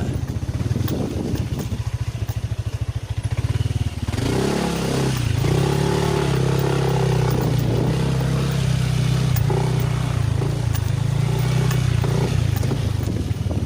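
Motorcycle engine running at low revs with a rough, fast pulse, then revving up about four seconds in and running steadily at a higher pitch.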